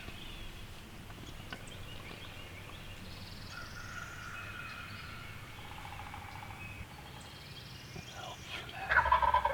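Birds calling at dawn, with thin whistled calls and glides, then a loud wild turkey gobble near the end.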